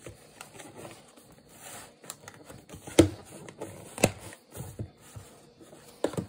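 Plastic lid being pressed and snapped down onto a plastic food storage container: a series of sharp plastic clicks, the loudest about three seconds in and another about a second later.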